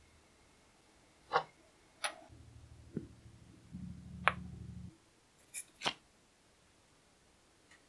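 A few light, sharp clicks and knocks of small workshop parts, a steel ferrule, a wooden chisel handle and a plastic epoxy syringe, being picked up and set down on a wooden tabletop. About six clicks are spread over a few seconds, and a faint low hum runs under the middle of them.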